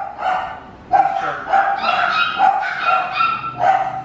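A dog barking in a quick run of short, high-pitched barks, about two or three a second.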